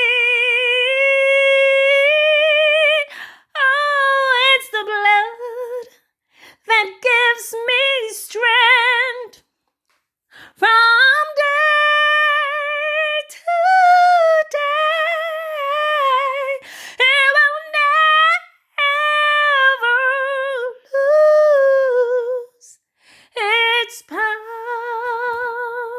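A woman singing a gospel song of praise solo and unaccompanied, in long high held notes with strong vibrato, phrase after phrase with short breaths between.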